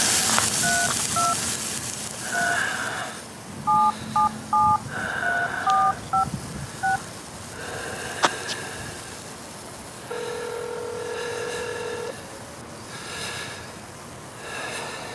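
Phone keypad dialing tones, about ten key beeps in quick, uneven succession. A few seconds later the ringback tone of the outgoing call begins, one long ring of about two seconds.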